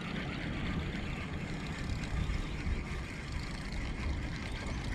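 Steady low rumble and rush of a small boat under way on calm water.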